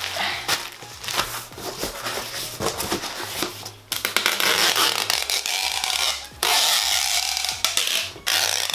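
Cardboard box flaps and bubble wrap crinkling as they are pressed down, then a handheld tape gun pulling packing tape off the roll across the box seam in three long runs, the last about two seconds.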